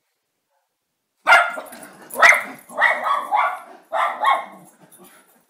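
Miniature schnauzer barking: about six barks in quick succession, starting a little over a second in.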